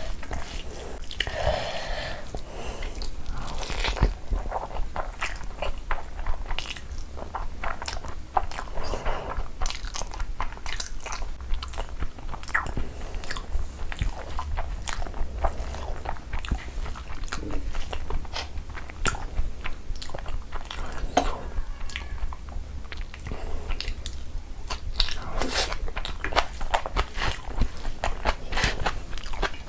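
A person eating close to the microphone: continuous chewing with frequent crunchy bites and wet mouth clicks.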